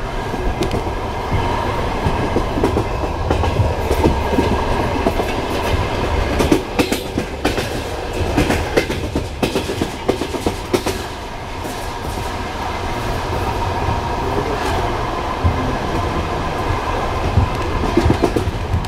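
Train wheels knocking over rail joints as railway cars roll past: a run of irregular clacks over a continuous rumble.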